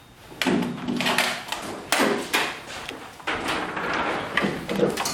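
A run of knocks, scrapes and rustles from things being handled and moved about, about half a dozen in a row, starting about half a second in.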